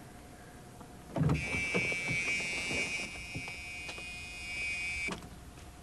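A car door opens with a thump and the car's warning buzzer sounds, a steady high buzz lasting about four seconds, then cuts off suddenly with a click as the door shuts.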